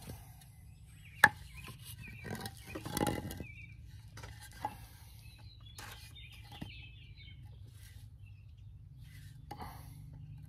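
Pine 2x4 boards being handled and knocked together, with one sharp wooden knock about a second in, a brief scraping rustle around three seconds and a few lighter taps later. Birds chirp faintly in the background.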